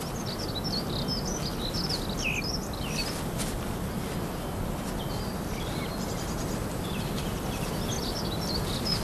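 Small birds chirping and twittering in quick runs of short high notes, over a steady outdoor hiss.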